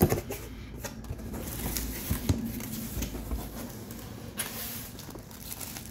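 Faint rustling and a few light knocks of plastic-wrapped parts and cardboard being handled inside a shipping box, over a low rumble.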